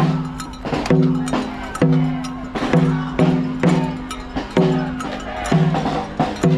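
A drum beaten in a steady rhythm, a little over one stroke a second, each stroke ringing briefly, with lighter percussion taps between the beats.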